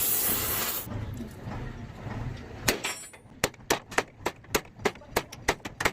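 A steady hiss cuts off about a second in. From about three seconds on comes a quick, even run of sharp taps, about three or four a second, like light hammering in a workshop.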